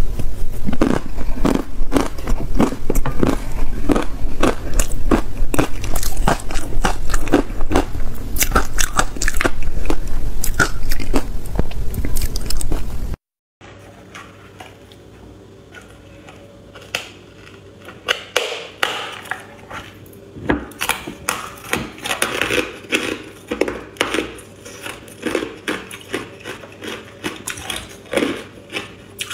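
Biting and crunching of hard ice coated in matcha powder. The first half is a fast, loud run of crunches. After a short break about halfway through, slower, quieter separate crunches and chewing follow.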